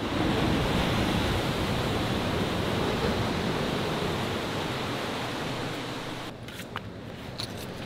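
Steady rush of ocean surf breaking on the beach, dropping away about six seconds in, with a few faint clicks near the end.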